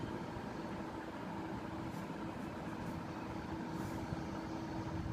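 A ballpoint pen writing on notebook paper, heard as a few faint scratches, over a steady background hum.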